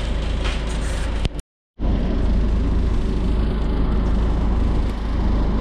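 Bus engine and road noise heard from inside the moving bus's cabin, a steady deep rumble that cuts out briefly about a second and a half in.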